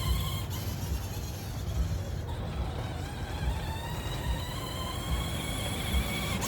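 Electric drive motor of a Spin Master Grave Digger Mega RC monster truck whining, its pitch rising and then falling as the throttle changes, over a steady low rumble.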